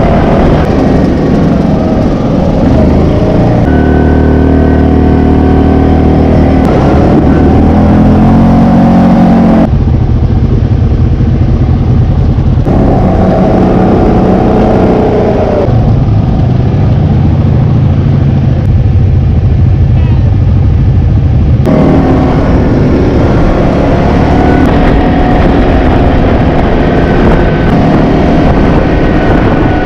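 ATV engine running as the quad is ridden, its pitch rising and falling with throttle. The sound changes abruptly twice, about ten seconds in and again about twenty-two seconds in.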